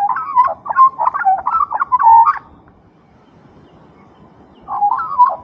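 Australian magpie carolling: two bursts of rapid warbling, fluting notes that glide up and down. The first lasts about two and a half seconds, and the second starts near the end.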